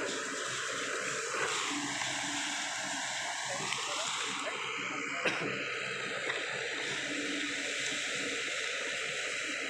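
Sany SY55C mini excavator running steadily as it swings and works its arm, with a few knocks, the loudest about five seconds in.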